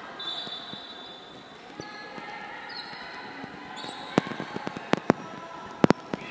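A handball smacking against the sports-hall floor several times in the later part, with the sharpest pair of hits shortly before the end. Rubber soles squeak on the court earlier on, over a low murmur of players' and spectators' voices.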